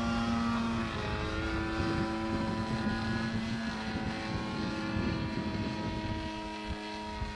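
Mitsubishi A6M Zero fighter's piston engine and propeller droning steadily in flight, slowly fading as the plane flies off.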